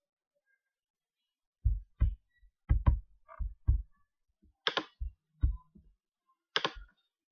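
Computer mouse clicks and desk knocks picked up by a close microphone: a run of dull, low thumps starting a little under two seconds in, some in quick pairs like double-clicks, with a few sharper clicks among them.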